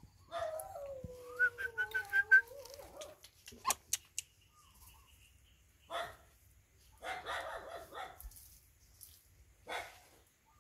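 A puppy whining in one long wavering cry for about three seconds, followed later by a few short barks.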